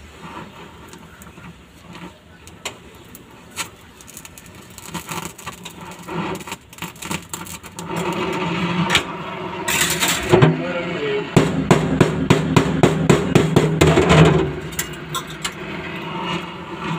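Gas welding torch fusing a steel patch into a van's floor pan, crackling and spitting irregularly. It grows busier about halfway through, with a run of rapid sharp clicks for a few seconds.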